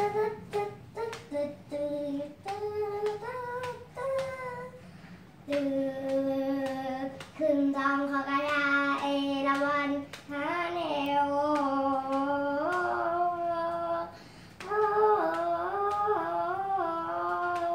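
A young boy singing a Thai classical melody in long held notes that slide and waver between pitches, with a couple of short breaks for breath. Sharp taps sound now and then.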